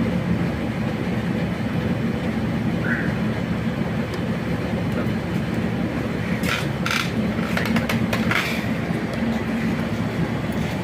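Steady low rumble of background noise, with several short sharp clicks between about six and eight and a half seconds in.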